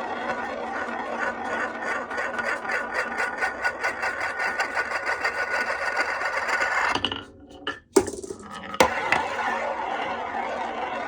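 Glass marbles rolling and clattering along a HABA wooden marble run, a continuous rattle with rapid clicks that speed up over several seconds. About seven seconds in it drops away briefly, two sharp clicks sound about a second apart, and the rolling rattle resumes.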